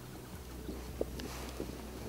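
Low steady rumble of wind on the microphone in open grassland, with a single soft click about a second in.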